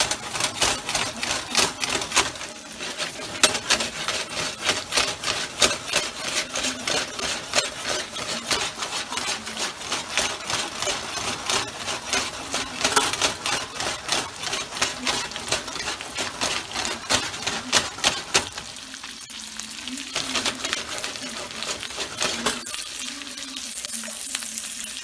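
Salmon fillets frying in oil with chopped herbs: a steady sizzle full of fine, rapid crackling pops, which eases briefly twice near the end. The fish is nearly cooked.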